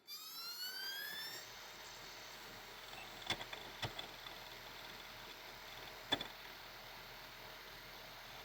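ASUS ZenDrive U9M external optical drive spinning up a disc, a whine rising in pitch over the first second and a half, then settling into a steady whirring hiss with a few faint clicks.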